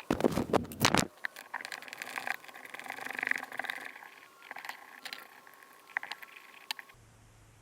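Hand tools and small metal parts clattering on a dirt-bike cylinder as a power-valve cover comes off: a loud burst of clattering in the first second, then scattered light metallic clicks and taps.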